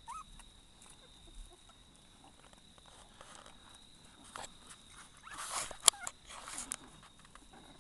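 Litter of 16-day-old puppies nursing and scrambling over one another on a blanket: a short rising squeak right at the start, then soft rustling and shuffling, with a sharp click about six seconds in.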